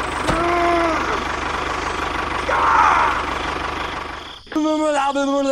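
Small engine idling steadily with a knocking rumble, cutting out about four seconds in. A short pitched sound comes near the start, and a string of pitched tones near the end.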